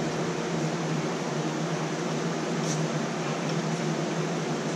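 Steady whir of a running electric fan, with a steady low hum underneath and one faint click a little past the middle.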